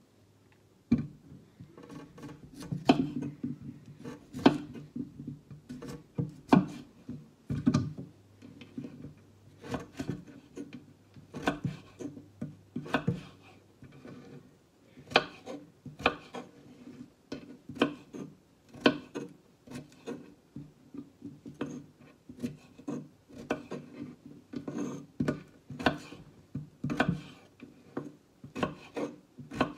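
Kitchen knife cutting red potatoes into cubes on a wooden cutting board: irregular knocks of the blade through the potato onto the board, about one or two a second.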